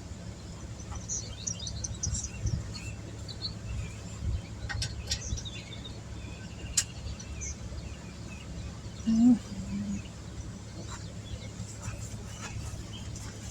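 Small birds chirping over a steady low rumble, with a few sharp clicks and one short low-pitched sound about nine seconds in.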